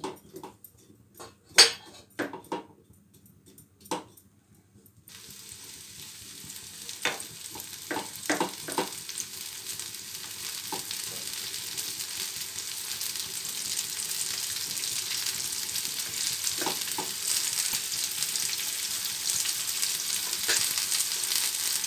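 Star fruit slices sizzling in hot oil in a nonstick frying pan. The hiss starts about five seconds in and grows steadily louder. Sharp knocks of a spatula against the pan come at the start and a few more a couple of seconds after the sizzle begins.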